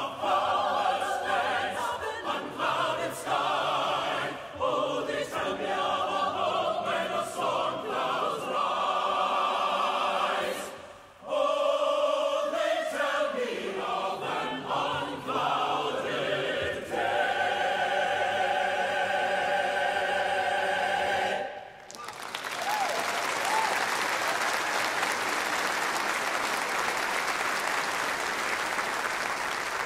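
Choir singing a hymn's closing phrases, ending on a long held chord about two-thirds of the way through; then a congregation applauds.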